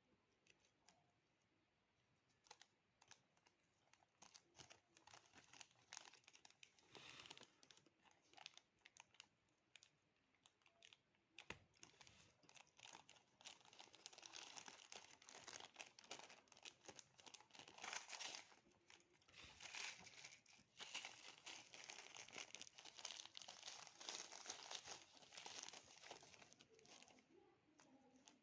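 Faint crinkling of delivery packaging as it is handled and torn open, with scattered crackles at first and almost continuous crinkling through the second half.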